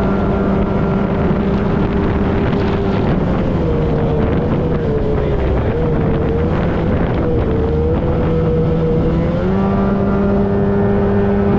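The two-stroke engine of a mini jet boat running hard under way. Its note holds steady, then from about three seconds in it drops and wavers up and down, and it settles back to a steady higher pitch near the end.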